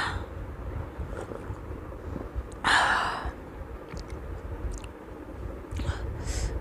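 A woman sighing into a close microphone: a breathy exhale at the very start and a longer one about three seconds in, with fainter breaths near the end.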